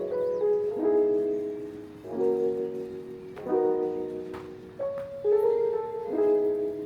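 Soft background music: slow piano chords struck about every second and a half, each ringing and fading before the next.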